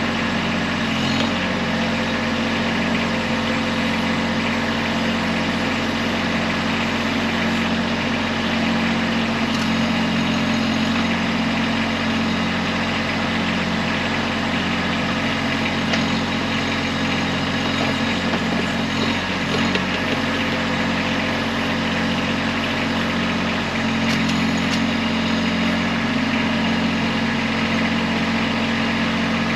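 Kubota B2301 compact tractor's three-cylinder diesel engine running steadily while driving the BH70 backhoe.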